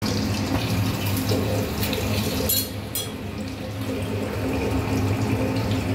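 Tap water running into a small aluminium cooking pot as a hand works inside it, over a steady low hum. Two sharp clicks come near the middle.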